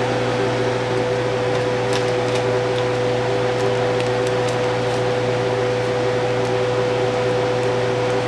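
Steady electric hum of a kitchen fan or appliance motor, holding one fixed tone, with a few faint light ticks over it.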